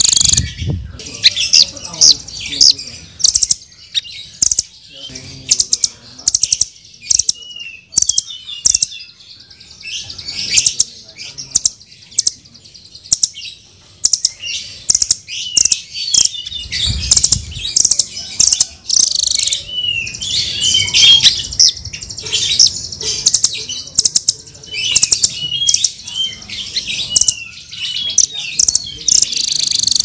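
Blue nuthatch calling: short, sharp, high chirps in quick runs, repeated over and over.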